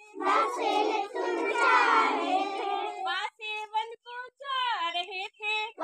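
A group of young children singing together in unison for about three seconds, then a single high voice carrying on alone in short sung phrases.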